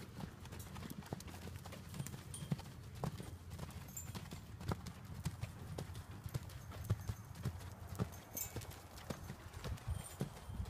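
Quarter Horse's hoofbeats as he is ridden, a run of uneven knocks over a low rumble.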